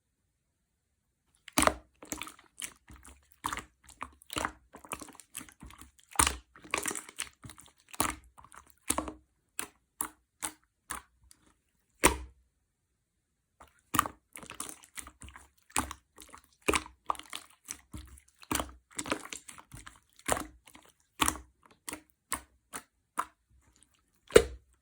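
Clear slime being squeezed and poked by hand, giving irregular sharp pops and clicks in quick clusters, with two short pauses.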